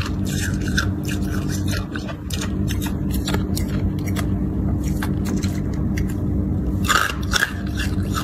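Hard clear ice crunching in irregular sharp cracks, with a burst of cracks near the end, over a steady low hum.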